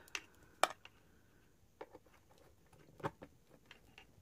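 Scattered clicks and knocks from handling an electric nail drill's handpiece cord and plugging it into the motor socket on the control box, the two loudest a little over half a second in and about three seconds in.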